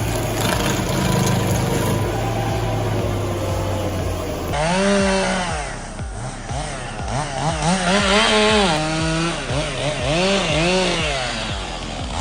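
A steady machine drone for the first few seconds, cut off suddenly. Then a chainsaw engine revving up and dropping back over and over, its pitch rising and falling in repeated sweeps.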